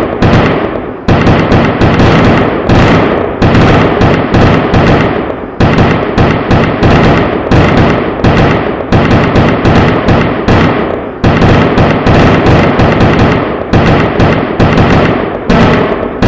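Rapid, dense string of loud firecracker bangs, several a second, overlapping and echoing without a break.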